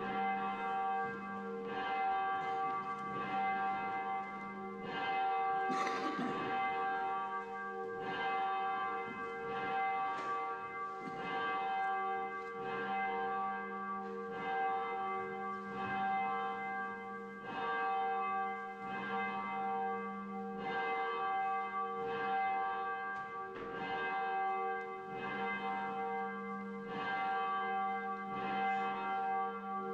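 Church bells ringing, struck over and over, each stroke ringing on into the next.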